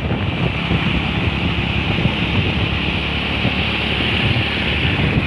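Wind buffeting the microphone, a steady fluttering rumble with a hiss over it.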